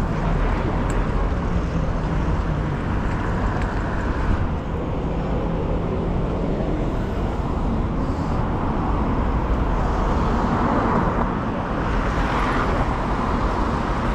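City street traffic: cars passing along a busy road with steady traffic rumble, swelling slightly as a vehicle goes by about ten seconds in.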